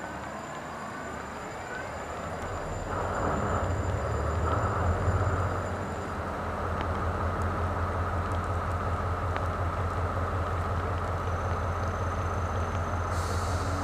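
Diesel engine of an SRT QSY-class diesel-electric locomotive starting up about three seconds in, running up loudly for a few seconds, then settling into a steady idle with a deep hum.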